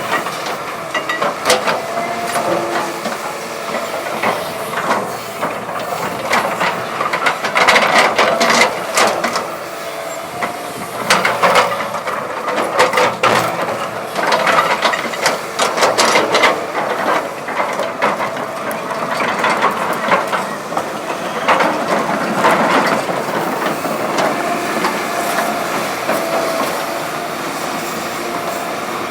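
Caterpillar 319D hydraulic excavator working: steady machine noise with a faint whine, broken by many irregular metallic clanks and knocks.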